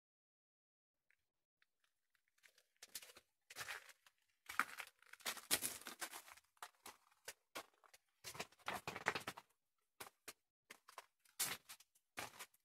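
Footsteps crunching on loose, gritty ground, in irregular scuffing bursts that start about two to three seconds in after near silence.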